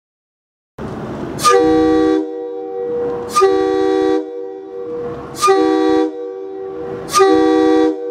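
Nathan K3L three-chime locomotive air horn blown in four short blasts, each opening with a sharp attack into a steady three-note chord. A hiss of air continues between the blasts.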